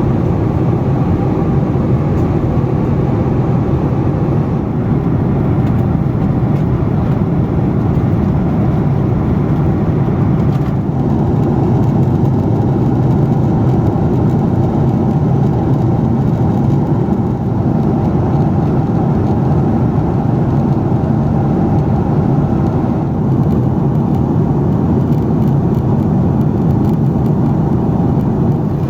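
Steady cabin noise of a Boeing 767-400 airliner in flight: an even rumble of jet engines and airflow that does not change.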